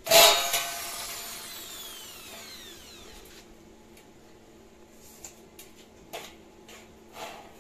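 Cordless drill boring into the sheet-metal hopper of a coconut grater: a sharp loud burst as the bit bites, then a falling whine that fades over about three seconds as the drill spins down. A few light knocks follow near the end.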